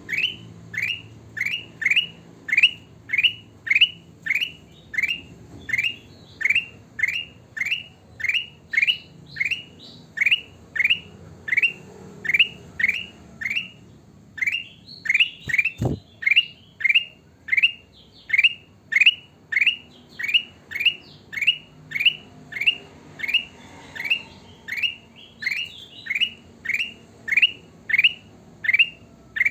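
Kutilang emas bulbul calling a short rising note over and over, evenly spaced at about one and a half notes a second. A single sharp click comes about halfway through.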